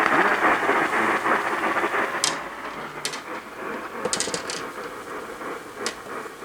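Radio static: a rushing hiss that fades over several seconds, broken by sharp crackles about 2 and 3 seconds in, a quick cluster around 4 seconds, and another near the end.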